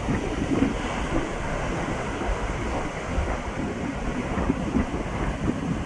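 Heavy surf breaking and washing on the shore, with strong wind buffeting the phone's microphone as an uneven low rumble.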